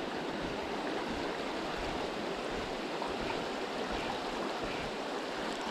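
A small, shallow trout stream flowing, an even, steady rush of running water.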